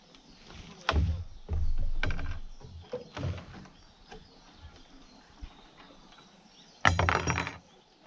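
Handling noise of a nylon dome tent on a wooden deck: fabric rustling with irregular knocks and clatter. The loudest burst of rustling and clatter comes about seven seconds in.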